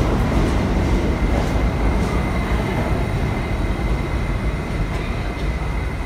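R68 New York City subway train rolling into the station beside the platform and slowing, a steady heavy rumble of wheels on rail that eases slightly as it slows.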